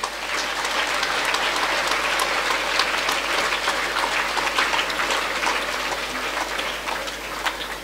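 Audience applauding: a steady round of many hands clapping that eases off slightly near the end.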